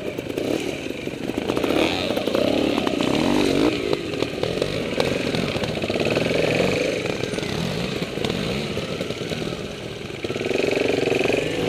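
Trials motorcycle engine running on and off the throttle, its pitch rising and falling in short blips as the bike picks its way down a rocky trail, with occasional knocks from the bike over rocks.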